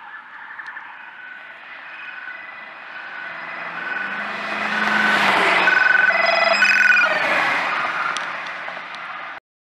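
Police cars passing with electronic sirens sounding in short repeated tones over road and engine noise. It swells to its loudest in the middle as they go by, then eases and cuts off suddenly near the end.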